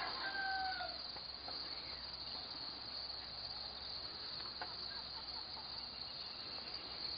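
Steady chorus of crickets trilling, a continuous high-pitched insect drone. A faint, slightly falling call sounds in the first second.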